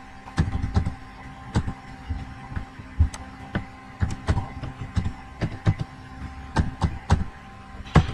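Computer keyboard keystrokes typing a password: irregular sharp key clicks, about two to three a second, over a steady hum.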